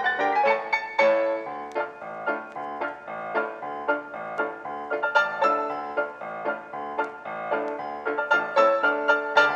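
Background music: piano playing a quick, continuous run of notes.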